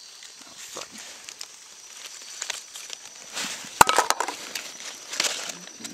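Dry leaf litter crackling and rustling as it is disturbed, with a cluster of sharp clicks about four seconds in, the loudest moment.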